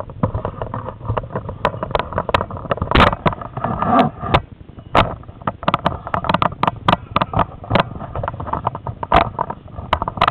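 Rattle and handling noise from a camera mounted on a wooden bokken as it is swung: dense, irregular clicks and knocks over a low rumble.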